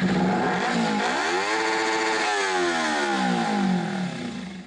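An engine revving up once, holding briefly at the top, then falling back down over a couple of seconds.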